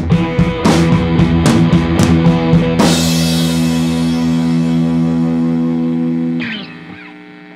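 Background rock music with guitar and drums. The drums stop about three seconds in and a guitar chord is left ringing, then it drops away sharply near the end.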